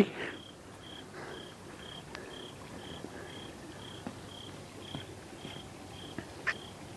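A cricket chirping at night: a single high chirp repeated evenly about twice a second, with a few faint clicks.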